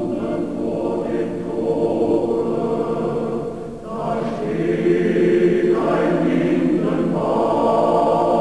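Choir singing held chords, with a short break just before four seconds in.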